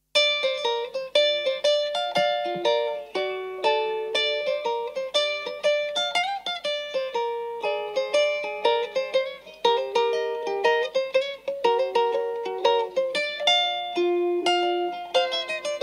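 Instrumental intro of a pop ballad on plucked acoustic strings, starting suddenly out of silence. A melody is picked quickly over chords, with a few sliding notes, and there are no drums or voice.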